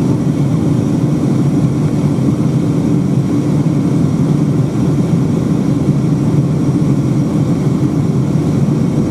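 Steady cabin noise inside a Boeing 757-200 in flight on approach: an even, low engine and airflow drone heard through the fuselage, with no changes in pitch or level.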